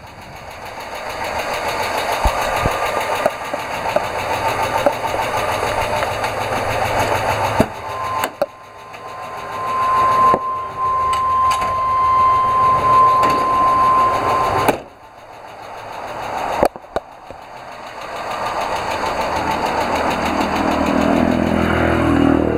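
An American school bus engine running with a fast, even tapping, the abnormal noise that the owner suspects is a failing hydraulic lash adjuster (lifter). It is heard in several short takes that cut in and out, the middle one with a steady whine on top.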